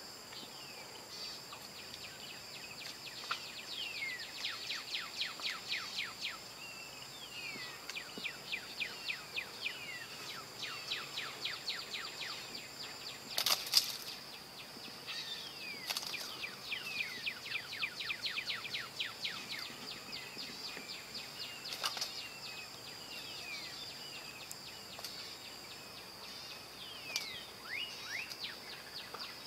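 Birds calling in repeated runs of quick, falling chirps over a steady high hum. Two sharp knocks, one about halfway through and one about three quarters through.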